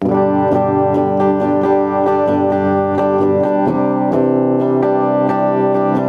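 JCraft LT1 Telecaster-style electric guitar played clean on its bridge pickup with the tone knob turned down, plugged straight into an audio interface with no amp or effects. Chords picked in a steady rhythm of about two strokes a second start suddenly, with a chord change about three and a half seconds in.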